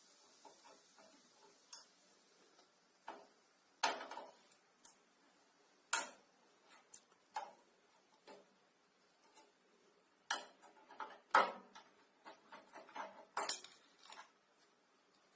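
Irregular metallic clicks and clinks of hand tools working on metal as the screws of the iron bracket holding an air conditioner's low-pressure service valve are taken out. The clicks are scattered, with a few sharper, louder clinks among them.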